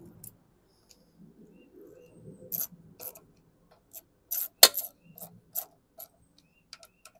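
A small hand tool clicking against metal as a bolt at the mower's carburetor intake is tightened down: a string of sharp metallic clicks about half a second apart, starting a couple of seconds in, the loudest about four and a half seconds in.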